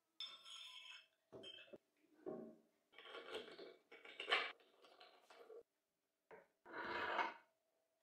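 Handling noises of a steel lathe tool rest and its clamping bolt being fitted to a wooden lathe bed: a string of short metal clinks, scrapes and rubs on metal and wood, the loudest about halfway through.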